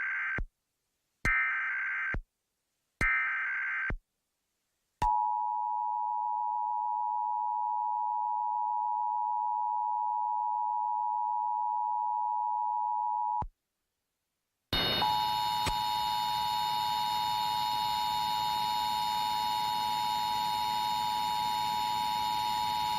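Emergency Alert System test tones: three roughly one-second bursts of SAME header data, then the two-tone EAS attention signal held for about eight seconds and cut off. After a short gap the attention signal starts again from a second station, this time over a steady hiss with faint high whines.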